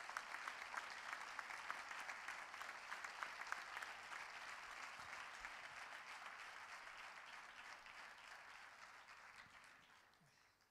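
Audience applauding, many hands clapping together; the applause thins and dies away near the end.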